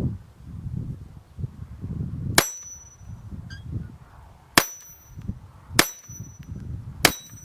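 .22 rimfire gunshots: four sharp cracks at uneven intervals, each followed by a brief high ring, with low wind rumble between.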